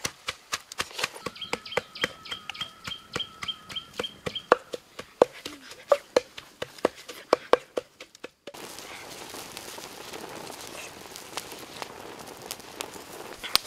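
A wooden pestle pounding in a clay mortar: a quick run of sharp knocks, with a thin steady whistle for a couple of seconds early on. About eight seconds in, this gives way to the steady hiss of a clay cooking pot boiling over, foam bubbling out around its lid.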